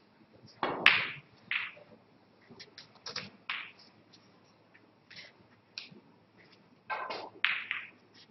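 Scattered sharp clicks and knocks in a quiet snooker hall, the loudest a single crisp click about a second in and a small cluster near the end.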